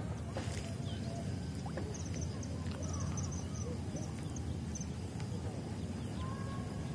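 Small birds chirping in quick runs of short high notes, with a few faint whistles, over a steady low rumble.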